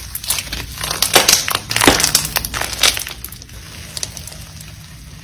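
Thick, bumpy green slime being stretched and squished by hand, giving a dense run of small clicks and pops. The pops are loudest in the first three seconds, then softer as the slime is pressed flat.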